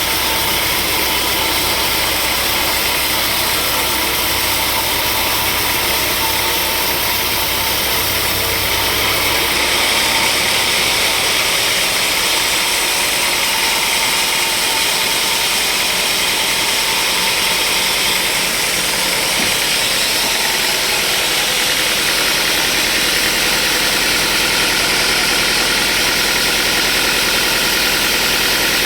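Sawmill machinery running steadily. About ten seconds in the sound shifts: the low hum drops away and a brighter, hissier upper sound takes over.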